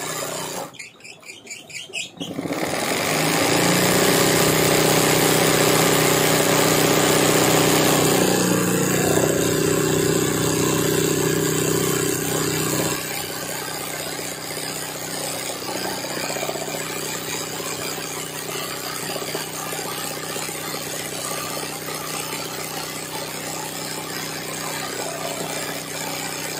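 Electric sewing machine stitching steadily during hand-guided embroidery. It stops briefly near the start, runs loudly, then carries on more quietly from about halfway through.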